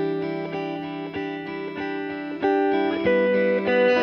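Background music led by guitar, its notes changing every second or so.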